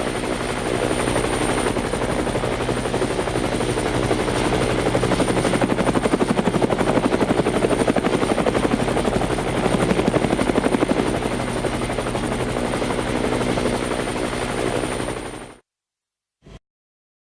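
Helicopter rotor blades chopping rapidly over a steady engine note with a thin high whine, growing a little louder midway and then fading out near the end. A single brief click follows in the silence.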